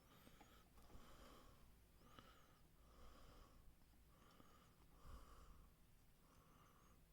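Faint, steady breathing of a person close to the microphone, a soft puff of air about once a second, with a slight whistle through the nose on some breaths.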